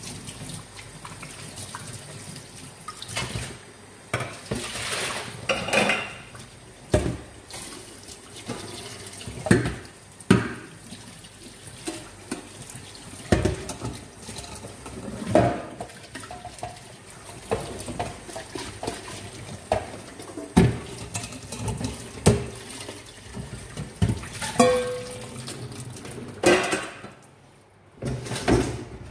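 Tap water running into a kitchen sink while stainless steel pots, bowls and a colander are washed, with frequent clanks and knocks of metal on metal. The running water stops near the end.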